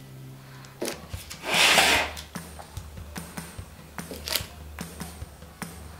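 A metal spoon scraping and tapping as it spreads and smooths soft avocado cheesecake filling in a parchment-lined springform pan: light clicks scattered through, with a louder swish about one and a half seconds in.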